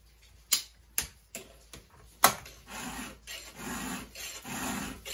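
Round 3/16-inch Husqvarna file being pushed through the cutters of a small top-handle chainsaw's chain clamped in a vise. A few sharp clicks come in the first two seconds, then rasping file strokes about every two-thirds of a second.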